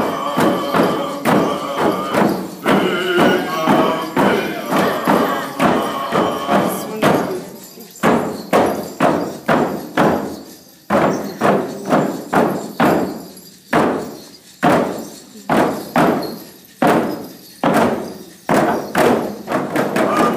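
Kwakwaka'wakw (Namgis) singers beating frame drums in a steady, even rhythm while singing a dance song. The singing drops away about seven seconds in, leaving mainly the drumbeat, and comes back near the end.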